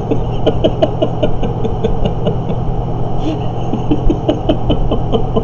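A man laughing in quick runs of short bursts, one about half a second in and another near four seconds in, over a steady low hum.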